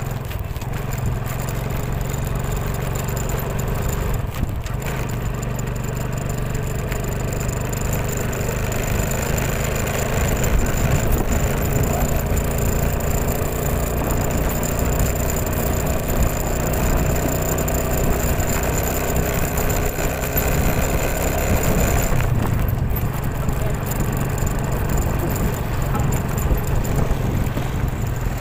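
An engine running steadily with a continuous low hum.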